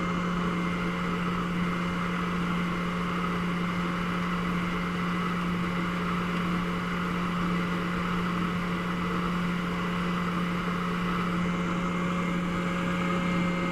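Band saw running steadily with a constant hum, along with its makeshift dust-suction hookup; the sound does not change, so no cut is heard starting or stopping.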